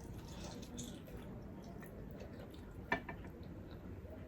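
Soft, wet chewing and mouth sounds of someone eating, with a single sharp click about three seconds in.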